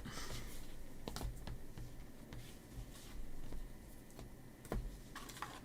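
Faint handling of trading cards and packs: scattered soft clicks and brief light rustles, with a dull tap near the end.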